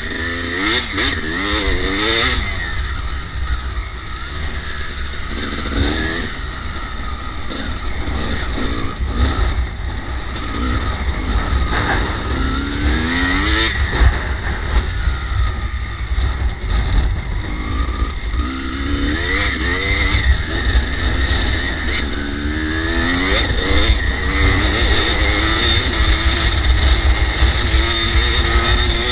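Kawasaki KX250 dirt bike engine under way, its revs climbing and dropping again and again as the throttle is worked, over a steady wind rumble on the microphone.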